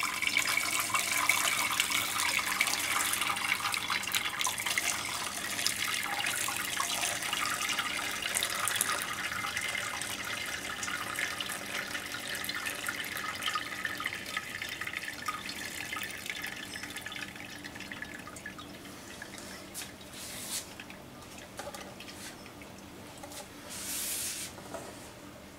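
Dashi broth being poured through a cloth strainer into a pot: a steady trickle of liquid through the cloth that gradually thins out to scattered drips over the last several seconds.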